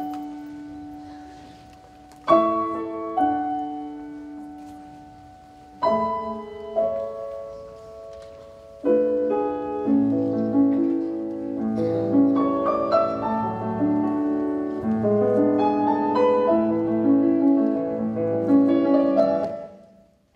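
Piano music. A few chords are struck and left to ring and fade, then from about nine seconds a fuller, busier piano passage plays over a low bass and cuts off abruptly near the end.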